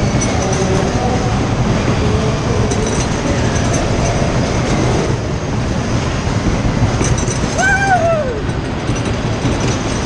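1937 Lakin Skid fairground ride spinning at speed: a loud, steady rumble and rattle. A rider gives one rising-and-falling whoop about eight seconds in.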